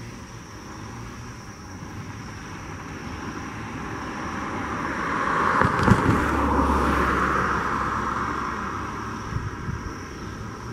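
Airbus A320's twin jet engines at taxi power, heard from behind: a rushing hiss that swells to a peak about halfway through, with a low rumble under the loudest part, then eases off.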